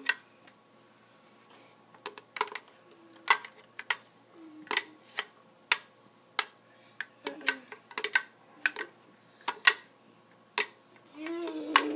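Plastic blender jar knocking and clicking in sharp, irregular taps as thick, chunky blended food is shaken out of it into foam cups. A voice starts near the end.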